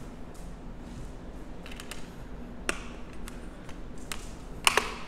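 Hands handling an open plastic Blu-ray case and its disc: scattered light clicks and taps, one sharp click a little past halfway, and a louder cluster of clicks near the end.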